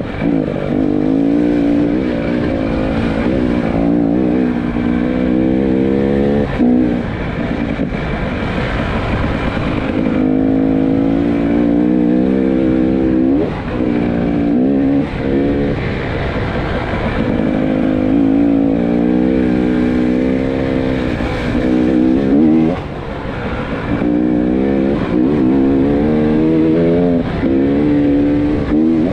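A 300cc two-stroke enduro motorcycle ridden over rough dirt trail, heard from the rider's helmet camera. The engine revs up and drops back again and again as the throttle is opened and closed, with a few brief dips where it is shut off. Wind rush and trail noise run underneath.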